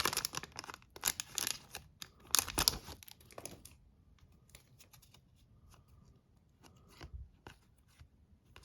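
Foil trading-card pack wrapper being torn open and crinkled in a few rustling bursts over the first three and a half seconds, then faint light clicks of cards being handled.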